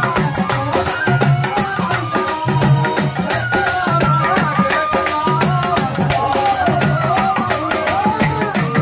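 Pandari bhajana folk devotional music: a wavering melody line over a steady hand-drum beat and constant jingling percussion.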